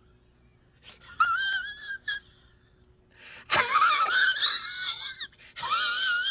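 High-pitched, wavering squeals in three bursts, the middle one the longest and loudest. This is a meme sound effect.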